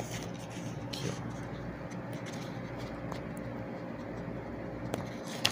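A phone camera being handled and repositioned by hand, with a few faint taps about a second in and near the end, over a steady low background hum.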